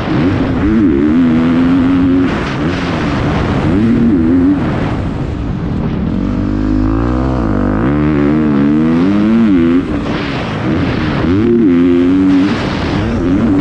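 Motocross bike engine heard from the rider's helmet, revving hard and falling off as the throttle is worked along the straight, dropping to lower, wavering revs through a corner about halfway through, then revving up again.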